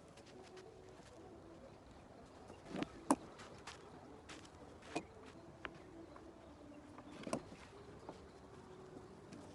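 A few scattered sharp clicks and knocks, the loudest about three seconds in, typical of a leather bridle's metal buckles and bit being handled. Faint cooing of doves or pigeons runs underneath.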